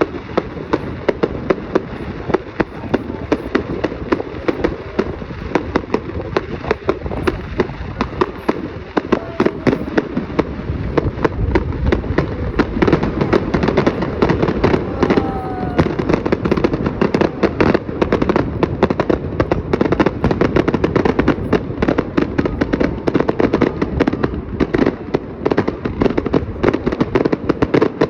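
Fireworks going off in a dense, continuous barrage of bangs and crackles, many per second, with two brief whistles near the middle.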